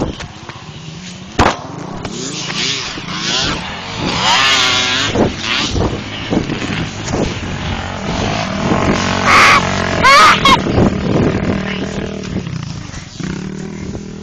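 ATV engine revving on a motocross track, its pitch rising and falling with the throttle. It is loudest about four seconds in and again around ten seconds.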